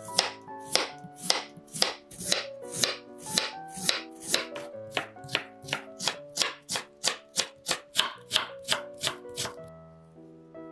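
Kitchen knife chopping a raw potato into thin strips on a wooden cutting board: a steady run of knife strokes, about three a second and quickening toward four, stopping near the end. Background music plays throughout.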